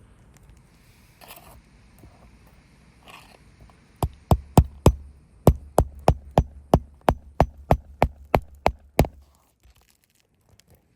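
A rapid series of about sixteen sharp knocks, roughly three a second, lasting about five seconds, after a few faint scrapes.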